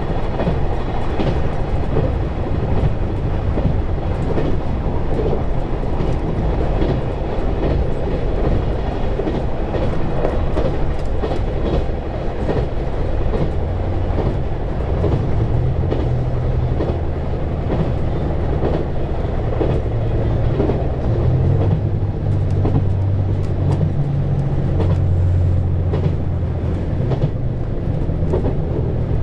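JR KiHa 187-series diesel railcar running along the line, with steady engine and wheel-on-rail noise heard from inside the front of the car. A low engine hum comes up about halfway through and grows stronger.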